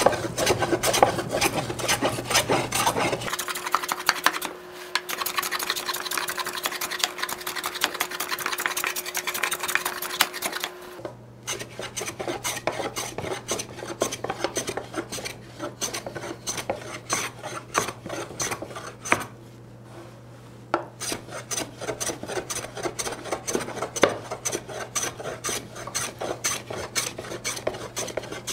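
A scrub plane, a cheap Stanley modified with a heavily cambered iron, rasping over a rough-sawn board in quick repeated strokes and taking thick shavings as it knocks down the high spots of a cupped face. There are brief pauses between runs of strokes.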